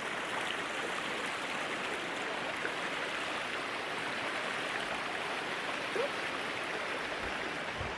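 Stream water running over rocks: a steady rushing. Two soft low thuds come near the end.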